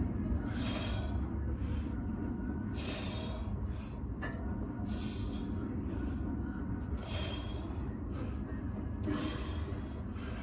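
A lifter breathing hard through barbell reps, with a sharp hissing exhale about every two seconds, over a steady low rumble.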